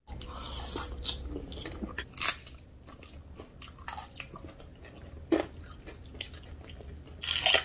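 A person biting and chewing a crunchy snack, with irregular crunches and a louder bite about two seconds in and again near the end.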